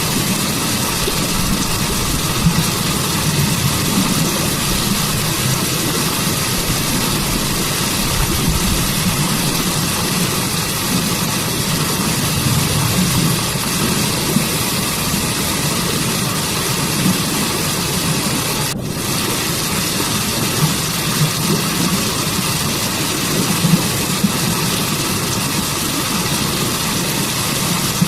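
Waterfall water rushing in a steady, loud, unbroken hiss, with a momentary break in the hiss about two-thirds of the way through.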